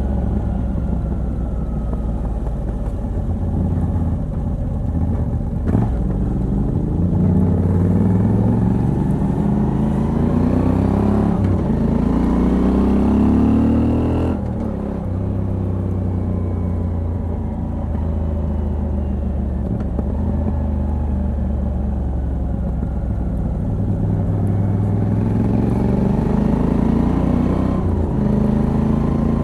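Moto Guzzi V85TT's air-cooled transverse V-twin, with a decat pipe on the stock exhaust, pulling steadily up through the revs. The pitch drops sharply at an upshift about halfway through, then holds and builds again toward the end with another shift.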